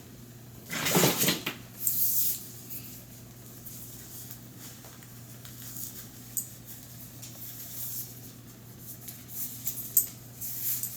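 Handling noises in a small room: a loud scrape or rustle about a second in, a shorter one just after, then scattered light clicks and knocks over a steady low hum.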